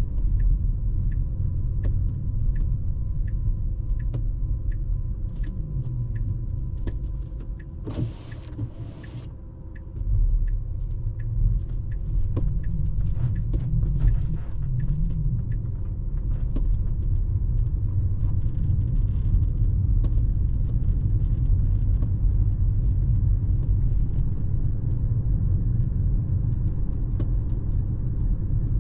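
Tyre and road rumble inside a Tesla electric car's cabin on a snowy road. For the first nine seconds or so the turn signal ticks evenly, with the car turning right. The rumble drops away for a couple of seconds around eight seconds in, then comes back.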